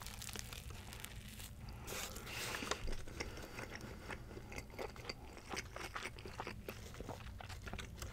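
Close-miked bite into an Italian sub on crusty rosemary parmesan bread, then chewing: soft crunches of the bread with many small mouth clicks, busiest a couple of seconds in.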